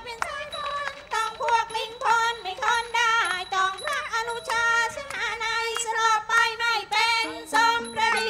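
Thai classical piphat ensemble music accompanying khon dance-drama: a high, wavering lead melody of short notes over a steady held tone.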